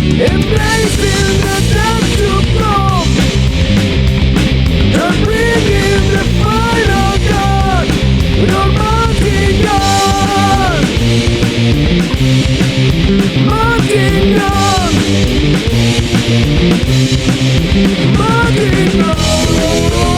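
Hard rock band playing an instrumental passage: a lead electric guitar plays short phrases with bent, gliding notes over distorted rhythm guitar, bass and drums.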